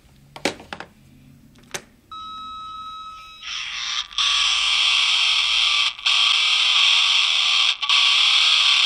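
Anime sound effects heard through a TV speaker: a few soft clicks, then about two seconds in a steady high ringing tone, giving way about a second later to a loud sustained rushing whoosh, broken by a few short gaps, as two bladers aim their Beyblade launchers.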